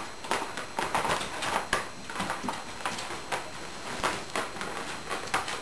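A dog's claws clicking and tapping irregularly on a hardwood floor, about two or three a second, as a Border Collie puppy pivots its hind feet around a rubber ball held under its front paws, with a few dull thuds from the ball.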